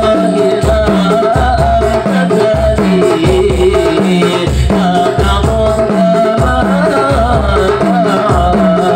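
Men singing a devotional Maulid chant together, amplified through a microphone, over a steady low beat at about one a second.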